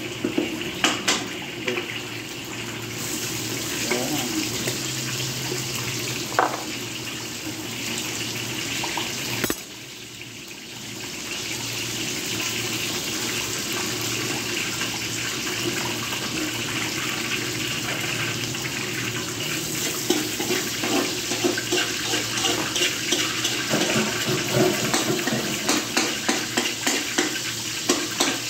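Water running steadily, as from a tap. It dips for a couple of seconds after a sharp click about ten seconds in. Small clicks and clatters grow more frequent in the second half.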